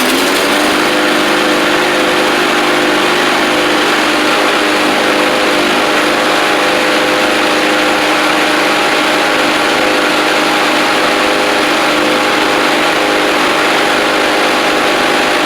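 Craftsman push mower's 163cc Briggs & Stratton single-cylinder engine running steadily at speed on fresh fuel, rising to speed just at the start and then holding an even, loud note.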